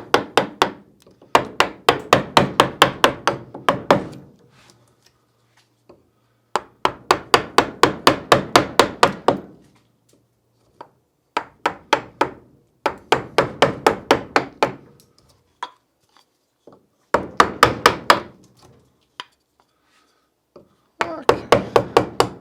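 Carving mallet driving a gouge into a tough, old beaver-chewed stick: runs of quick knocks, about four or five a second, in bursts of a few seconds with short pauses between.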